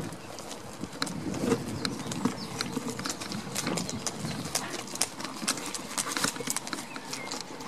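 Goats' hooves clip-clopping on asphalt as several goats walk together, a quick, irregular patter of taps. A faint steady hum runs underneath.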